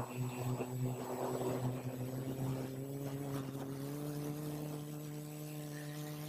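Multirotor drone's motors and propellers humming steadily, the pitch creeping slightly higher over the seconds. Rustling wind on the microphone in the first second or two.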